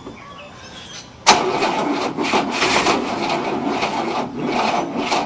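Starter motor cranking the 1967 Cadillac's V8, unstarted for 30 years. It kicks in suddenly about a second in and turns the engine over in an uneven chug of about three to four strokes a second without firing, slowly, on what is blamed on a weak battery.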